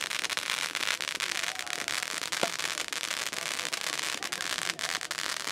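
Ground firework burning, giving off a dense, steady crackle of tiny pops.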